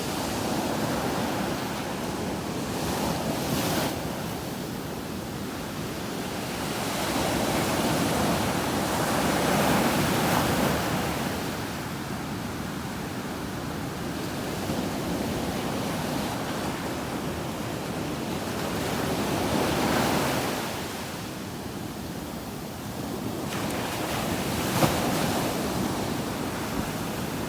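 Sea waves breaking on a sandy beach: a steady wash of surf that swells into louder breaks about a third of the way in and again about two-thirds through, then eases back.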